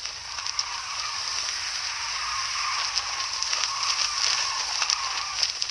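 Cloth banner flapping in the wind: a steady hiss with irregular crackling snaps of the fabric, cutting off suddenly at the end.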